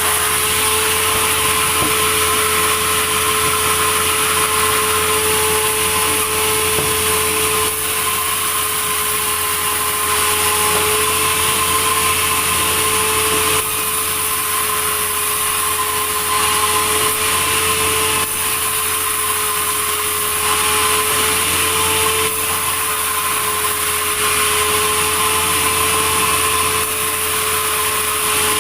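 Sawmill machinery running steadily with a constant whine over a wash of noise, its level stepping abruptly a few times.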